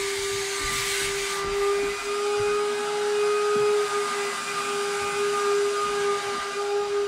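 Carpet-cleaning vacuum running with a steady whine over a rushing airy hiss; the hiss thins about a second and a half in while the whine carries on.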